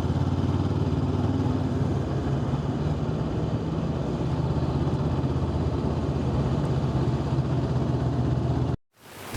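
Motorcycle engine idling steadily, a constant low hum under a rushing noise, cutting off abruptly near the end.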